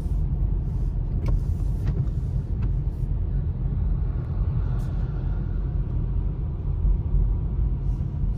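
Steady low rumble of a car driving on wet pavement, heard from inside the cabin, with a few faint ticks in the first few seconds.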